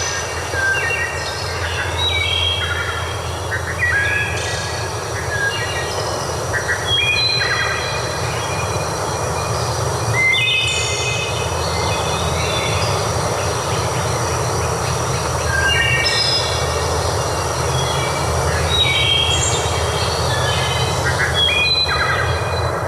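Birds calling in short, repeated bursts of clear whistled notes, over a steady rush of running water.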